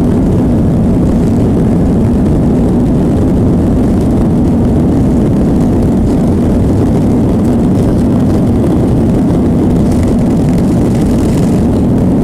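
Jet engines of a Boeing 737 running at high power, heard inside the cabin as a loud, steady, deep noise with a low hum throughout.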